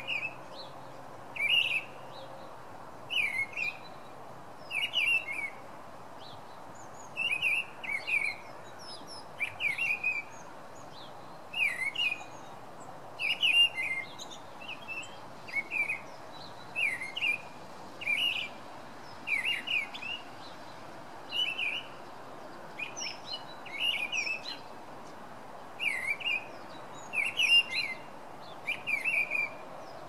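Song thrush singing: a long series of short phrases, each a quick run of high notes, following one another with brief pauses, about one phrase every second or so, over a faint steady hiss.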